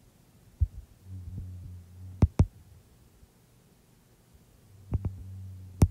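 A low steady hum that comes and goes twice, with several sharp clicks, two close together about two seconds in and more near the end.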